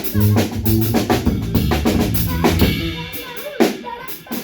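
Live band music with the drum kit to the fore: kick drum, snare and rimshots over bass and guitar. In the last second or so the low end thins out, leaving mostly drums.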